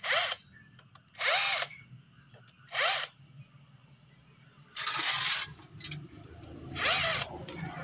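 Cordless impact wrench running in five short bursts, each a rising whine, as it spins the 10 mm clutch spring bolts out of the clutch pressure plate.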